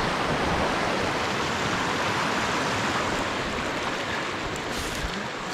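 Shallow rapid in a rocky stream: water rushing steadily over and between the rocks, easing off a little near the end.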